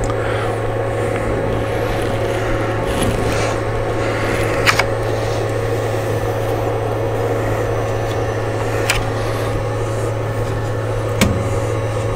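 Steady low machine hum, with three brief crackles from the paper backing being peeled off an adhesive magnetic sheet.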